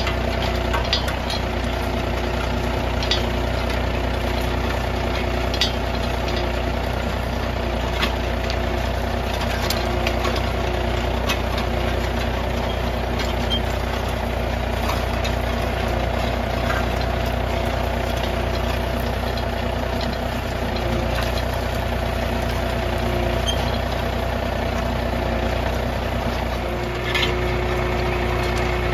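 John Deere 3025E compact tractor's three-cylinder diesel engine running steadily while pulling a spring-tine cultivator through the soil, with scattered sharp clicks and knocks.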